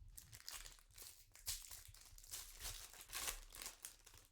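Trading-card pack wrapper being torn open and crinkled by hand: a run of irregular crinkling rustles.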